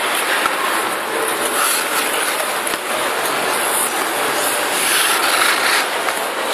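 Steady hiss and scrape of many ice skate blades gliding and cutting on rink ice, an even noisy wash with brighter scraping swells.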